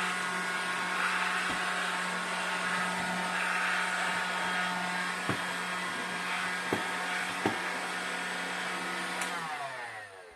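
AEG Ultra Power AG5020 cordless stick vacuum running steadily on a lower power setting, with a few light knocks. Near the end it is switched off and the motor winds down, falling in pitch.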